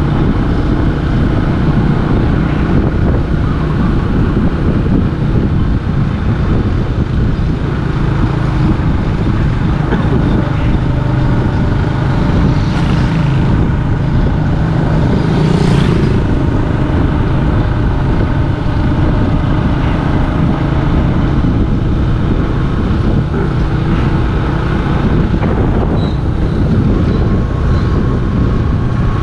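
Steady engine running and road noise from a motor vehicle on the move, with a brief swell about halfway through.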